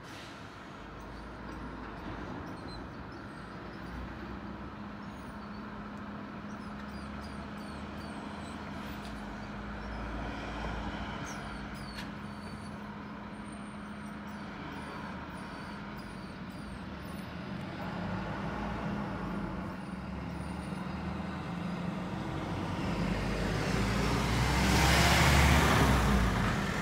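Diesel engine of a box lorry running at low speed while it manoeuvres, a steady low hum that slowly grows louder. Near the end it peaks in a loud rush of engine and tyre noise as the lorry drives past close by, then falls away.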